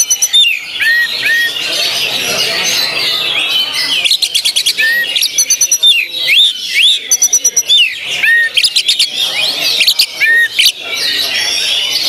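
Oriental magpie-robin (kacer) singing loudly: clear whistled notes that slide down in pitch, broken several times by fast stuttering runs of clipped notes, the rapid-fire 'tembakan' (shots) that kacer contest birds are judged on.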